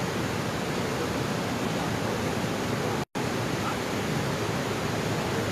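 Steady rushing of water, even and unbroken, with a sudden brief dropout to silence about three seconds in.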